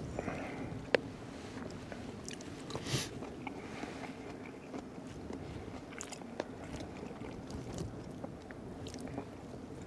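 A person chewing steak close to the microphone, with scattered sharp clicks, a loud one about a second in, over a steady hiss of wind and heavy rain.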